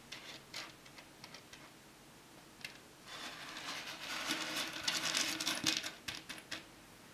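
Handmade pure silver Cuban link chain clinking as a hand handles it and gathers it up: a few light clicks at first, then a dense jingling rattle of the links in the second half.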